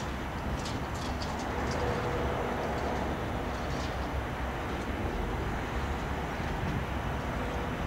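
Airbus A319's jet engines running at taxi power as the airliner taxis: a steady rumble and hiss.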